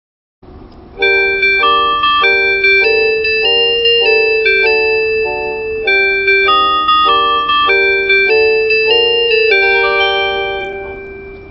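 Electronic onboard chime melody of a Chizu Express limited express train, a tune of short, bright keyboard-like notes that fades out near the end. A steady hiss runs underneath.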